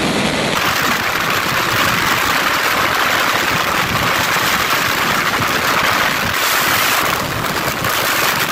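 Heavy wind rushing over the microphone on a sportbike at full speed: a loud, steady roar of wind noise that covers any clear engine note. It changes character about half a second in.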